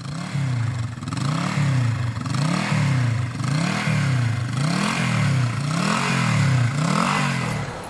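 Motorcycle engine revved again and again, its pitch climbing and dropping about once a second.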